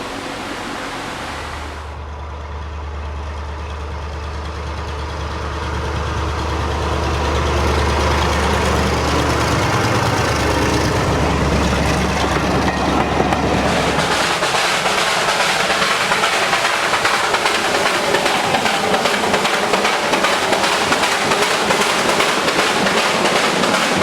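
Train running, growing louder, with a steady low hum through the first half that gives way to a loud, even rushing noise.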